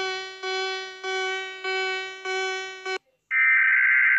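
Emergency alert tones. A repeating beeping tone, about five pulses a little over half a second apart, cuts off about three seconds in. After a brief gap, a louder steady, harsh alert tone begins.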